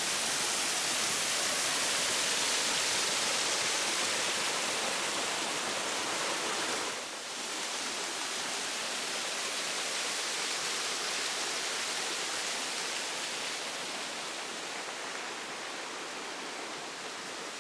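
Waterfall splashing down onto rock: a steady rush of falling water. It dips briefly about seven seconds in and grows a little quieter toward the end.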